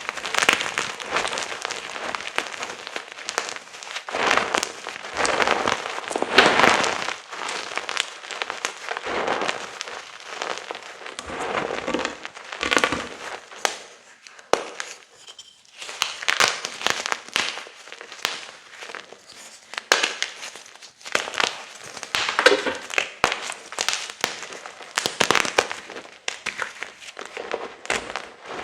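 Chunks of gym chalk being crushed and crumbled, making dense crunching and crackling in bursts, with a brief lull about halfway.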